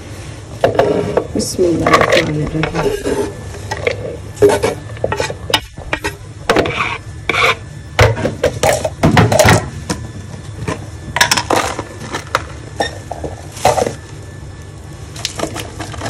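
Chopped onion and green chillies being scraped off a wooden chopping board into a bowl: irregular scrapes and knocks of wood against the bowl.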